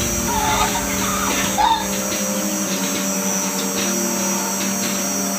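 Steady hum of a bucket milking machine's vacuum pump running, with a few short chirps in the first two seconds.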